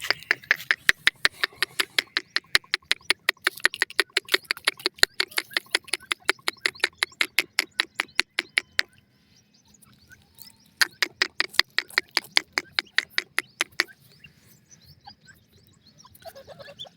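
A bird's call: a rapid run of sharp ticks, about six a second, lasting about nine seconds, then after a short pause a second run of about three seconds.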